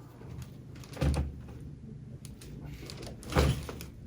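Two dull thumps about two seconds apart, one about a second in and one near the end: bodies shifting and pressing on a padded chiropractic treatment table during a side-lying adjustment.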